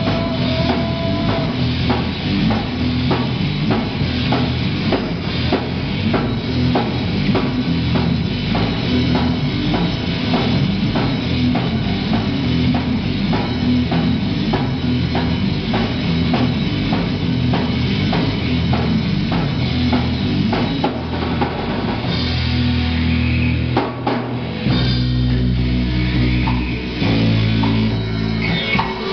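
Rock band playing live on a drum kit, electric guitars and bass guitar at a fast, driving beat. About 22 seconds in the steady drumming gives way to held chords, with a brief stop just before 25 seconds.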